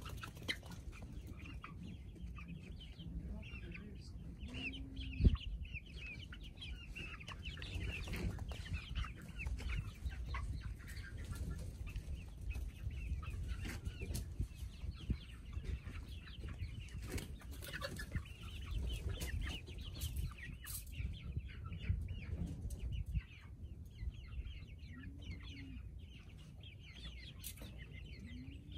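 A flock of hens clucking and chattering in short, scattered calls. There is one sharp knock about five seconds in.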